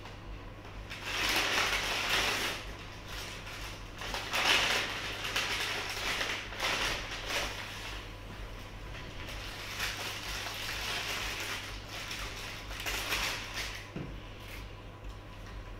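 Paper fast-food bag and burger wrapper rustling and crinkling in repeated bursts as a burger is taken out of the bag and unwrapped, over a steady low hum.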